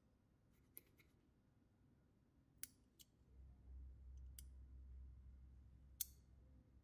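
Small hand cutters snipping off excess conductive thread: about six short, sharp snips spread out, the last one loudest, with a faint low hum starting about halfway.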